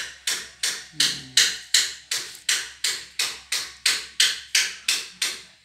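Evenly spaced sharp knocks, about three a second, each dying away quickly; they stop just before the end.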